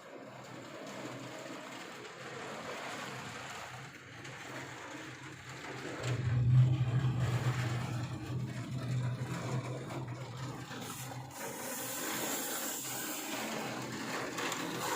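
Squall wind and heavy rain as a steady rushing noise, with a low rumble that swells suddenly about six seconds in and dies away by about eleven seconds.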